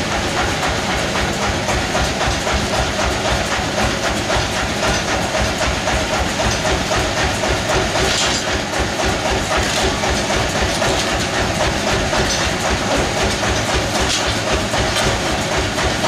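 Sawmill machinery running steadily: a continuous loud mechanical clatter with a fast, even low pulse underneath.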